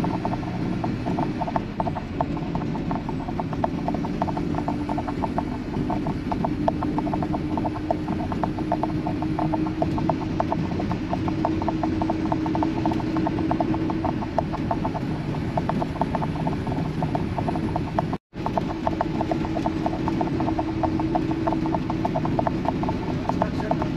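Vehicle cabin noise at highway speed: a steady road and engine drone with a constant fast rattling tick. The sound cuts out for a moment about eighteen seconds in.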